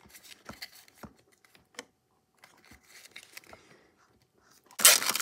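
Light clicks and taps of a tiny plastic toy box being handled, then near the end a sudden loud crinkling of the printed paper wrappers inside a toy capsule ball as they are opened.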